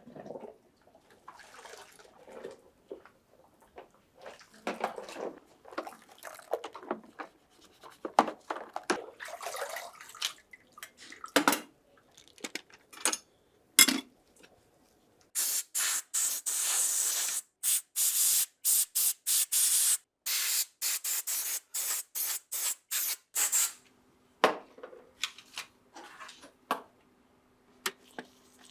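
Light clicks and rubbing from handling a small metal model, then a quick run of about fifteen short hissing spray bursts. A faint steady hum comes in near the end.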